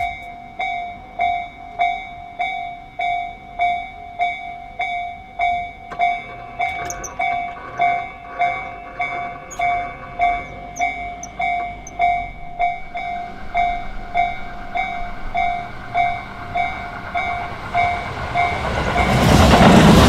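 Japanese level crossing alarm ringing its electronic bell, a clear ding repeating about three times every two seconds. Near the end an electric commuter train arrives and crosses, and its loud rush and wheel noise swell over the bell.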